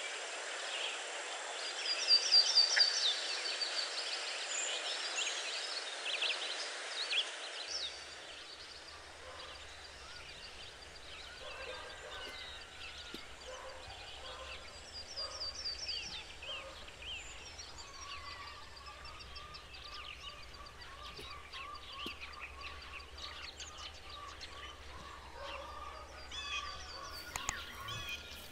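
Birds chirping and calling outdoors, with a loud quick run of high chirps about two seconds in. Later there is a long run of quick, lower repeated calls lasting a few seconds. About eight seconds in, the background hiss drops away.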